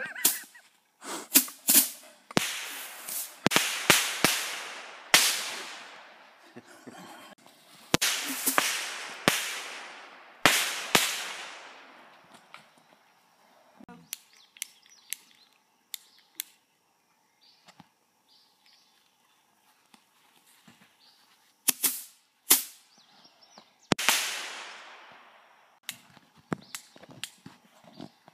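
Small consumer fireworks going off: a quick run of sharp bangs, each trailing off in a fading hiss, through about the first twelve seconds. Then come scattered smaller pops, and another few bangs about twenty-two seconds in.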